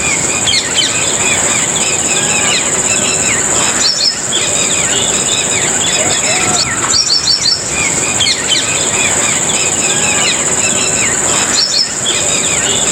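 Many small birds chirping and twittering in quick, overlapping calls over a steady, high insect drone.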